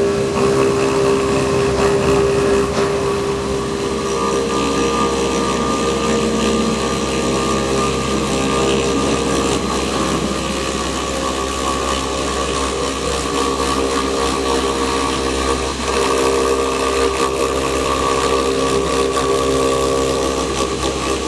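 Omag Blade5 CNC machine's spindle running steadily while a tapered carving tool mills a block of white stone. It makes a loud, even mechanical sound with a few held tones under a grinding hiss, and dips briefly near the end.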